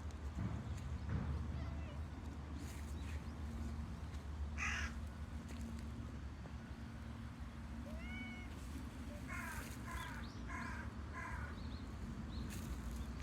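Cats meowing: a few scattered short calls, then a run of four quick ones near the end, over a steady low hum.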